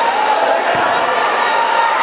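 Crowd of football spectators, many voices talking and calling out over one another, with a short thump about three-quarters of a second in.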